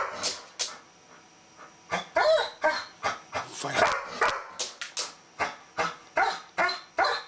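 Golden retriever barking and whining excitedly in quick bursts. There is a short pause about a second in, then the calls come about two a second.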